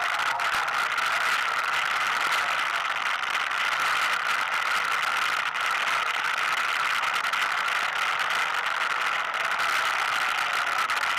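ATV (quad) engine running steadily while the quad rides along a gravel wash, with a light rattle.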